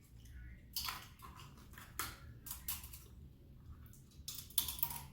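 Close-up eating sounds from a seafood boil: a run of sharp irregular cracks and crunches with wet chewing, as shells are broken and food is chewed.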